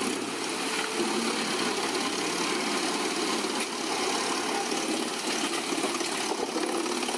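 Albach Diamant 2000 mobile wood chipper running steadily under load as its loader crane feeds whole tree tops into the infeed. The engine and chipping noise is continuous, with no clear breaks.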